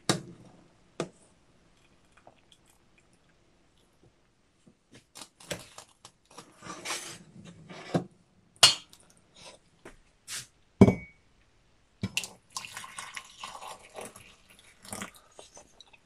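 A metal fork clicking and scraping against a plate of boiled pelmeni, with soft handling noises between the clicks and one louder, briefly ringing clink partway through.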